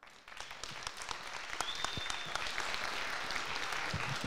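Audience applauding, starting suddenly and building within the first half second to a steady level, with a brief high whistle over it about a second and a half in.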